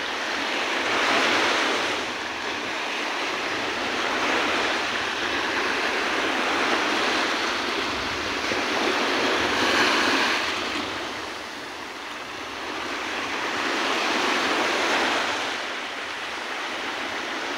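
Small waves breaking and washing up a sandy beach, the surf swelling and fading every four to five seconds.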